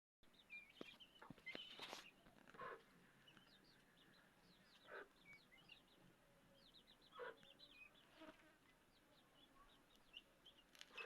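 Faint, rapid high peeping of many young chicks, with a few soft knocks in between.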